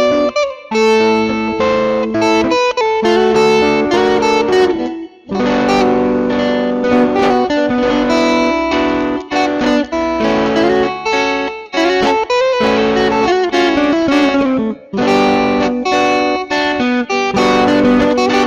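Instrumental rock ballad played on two guitars, picked melodic notes with no singing, briefly dropping out about half a second and about five seconds in.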